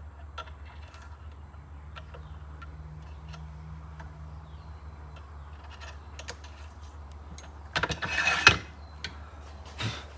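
Small clicks and clatter of tools and parts being handled at a lathe, over a steady low hum, with a louder rustling clatter about eight seconds in and a shorter one near the end.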